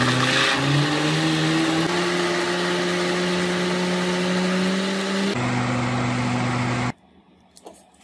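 Countertop blender motor running under the load of a thick cream and cream-cheese mixture. Its pitch climbs over the first two seconds, holds steady, drops to a lower note about five seconds in, and the motor cuts off about a second and a half later.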